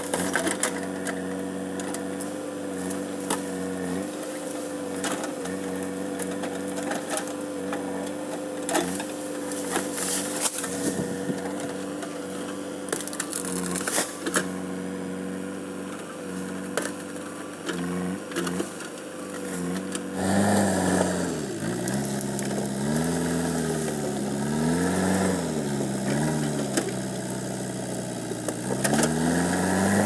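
JCB backhoe loader's diesel engine running at a steady pitch while the backhoe arm works, with scattered sharp knocks and cracks from the bucket striking earth and brush. From about 20 seconds in, the engine revs rise and fall repeatedly and grow louder as the machine drives and pushes with its front loader.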